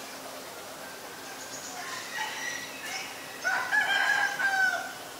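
A rooster crows once, one call of about a second and a half starting about three and a half seconds in. Softer bird calls come before it.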